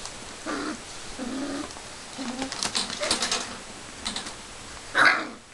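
Airedale puppies playing: short low growls and small yips with scattered sharp clicks, and a louder short cry near the end.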